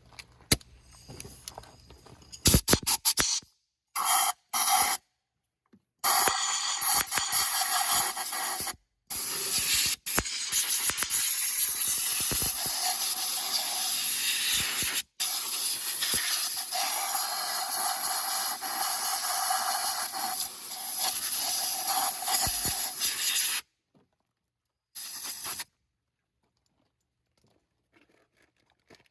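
Pressurised spray hissing from a nozzle in long, steady blasts over the wet ignition coil area, broken into several stretches, after a few short clicks and brief bursts; water has dripped onto the coils.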